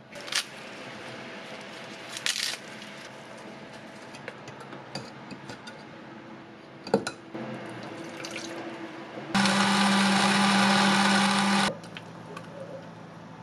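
Electric blender running in one short burst of about two seconds, starting and stopping abruptly. Before it come a few light kitchen clatters and a sharp click.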